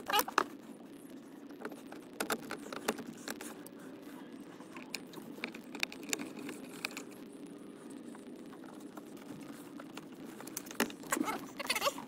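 Small metal hand tools clicking and scraping against the plastic steering column shroud and its fasteners, in scattered light clinks that come thicker at the start and again near the end, over a faint steady hum.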